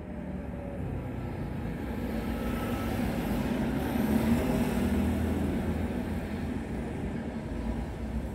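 Street traffic: a car drives past, its engine and tyre noise swelling to a peak about halfway through and then easing off.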